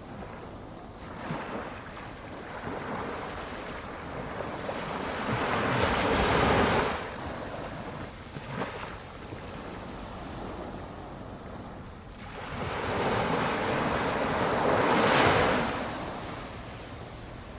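Small waves breaking gently on the shore of a flat calm sea. Two wave washes build and fall away, one peaking about six seconds in and the next about fifteen seconds in, with a low steady wash between them.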